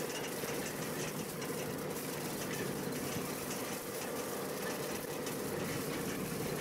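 Vehicle engine running steadily while driving across a paddock, heard from on board as a constant hum mixed with driving noise.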